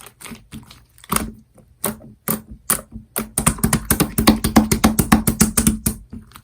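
Hands squeezing and pressing an opaque pastel-yellow slime: scattered sticky pops and clicks, becoming a fast, dense run of crackling clicks about three seconds in that stops just before the end.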